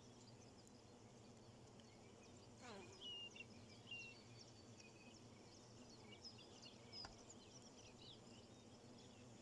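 Faint birdsong: several small birds chirping and twittering in short high notes, one long falling call about three seconds in, over a steady low background hum.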